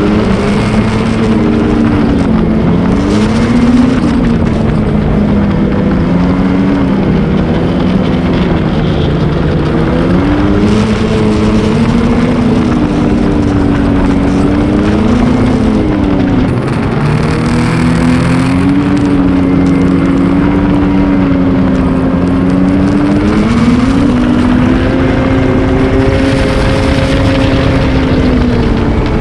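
Ski-Doo Renegade XRS 850 snowmobile's two-stroke twin engine running under way, its pitch rising and falling again and again as the throttle is worked, over a steady rushing noise.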